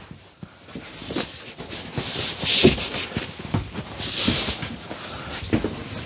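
Upholstered couch cushions being handled and set into place as a Murphy bed is folded back into a sofa: soft rustling swishes, about two and four seconds in, among light thumps and knocks.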